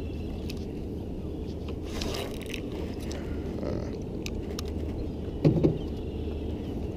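Small boat outboard motor running steadily at low speed while towing, under water and wind noise, with a single sharp knock about five and a half seconds in.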